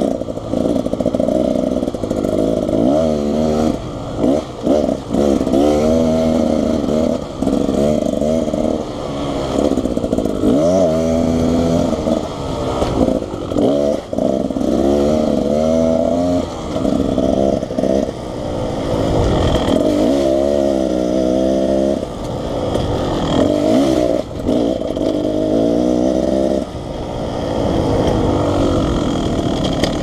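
2019 Beta Xtrainer two-stroke dirt bike engine under way on a trail, its pitch rising and falling over and over as the throttle is opened and rolled off, with brief drops every few seconds.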